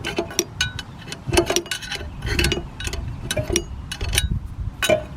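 Irregular metallic clicks and clinks of a 7/16 wrench working the main gas line fitting on an RV water heater's burner control, some with a brief high ring.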